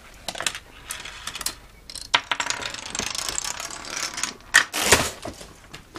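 Marble run and domino chain of a homemade Rube Goldberg machine: scattered sharp clicks, then a rapid run of clicks as dominoes topple one after another. Two louder knocks come near the end.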